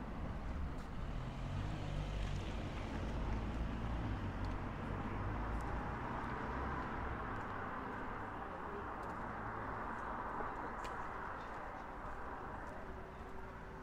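A car going by on the street: a low engine rumble, then tyre noise that swells about two-thirds of the way through and fades.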